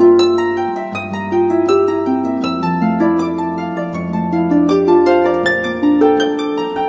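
Gentle instrumental theme music: a plucked-string melody of quick, decaying notes over sustained low bass notes that step to a new pitch every second or so.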